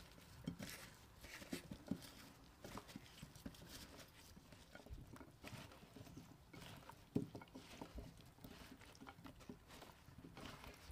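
Gloved hands tossing chunks of spiced vegetables (potatoes, corn cobs, squash, peppers) in a glass bowl: faint, irregular soft knocks and taps of vegetables against each other and the glass, with one sharper knock about seven seconds in.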